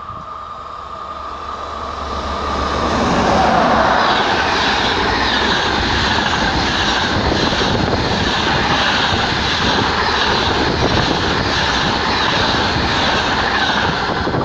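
A passenger train passes at speed behind two SNCF BB 22200 electric locomotives. The noise builds over the first few seconds as the train comes up, then holds as a loud, steady rush of steel wheels on rail, with regular clacking as the long rake of couchette coaches runs by.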